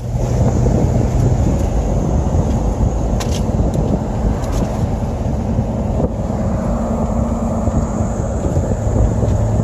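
A car driving, heard from inside the cabin: a steady low rumble of engine and tyres with a faint steady hum beneath it.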